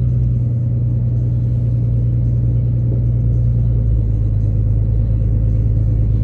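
Truck running, heard from inside the cab as a steady low rumble of engine and running gear, with an excavator in tow.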